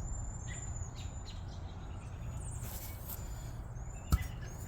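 Outdoor ambience: a steady high insect trill, a few short bird chirps and a low steady rumble, with one sharp click or knock about four seconds in.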